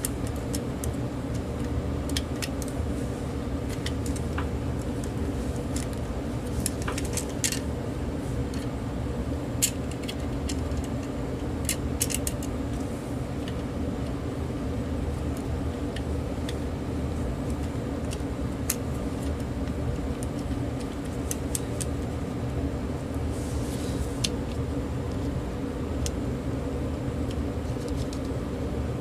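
Scattered small clicks and taps of plastic cordless phone handset parts being handled and fitted, over a steady low hum.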